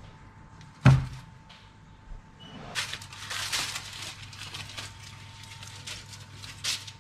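A ceramic baking dish is set down on a wooden cutting board with one sharp clunk about a second in, then the aluminium foil covering it is peeled off with crinkling and rustling for about four seconds.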